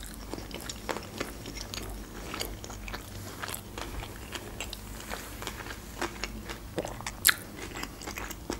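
Close-miked chewing of crunchy food: a run of small crunches and wet mouth clicks, with one sharper, louder crunch about seven seconds in.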